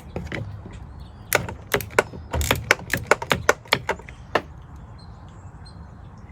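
Quarter-inch drive ratchet clicking in short strokes as it loosens a terminal nut: about a dozen sharp clicks over roughly three seconds, starting about a second in.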